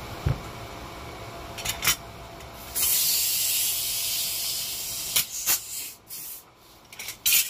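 A hissing spray lasting about two seconds, set among sharp clicks and knocks, with a cluster of knocks near the end.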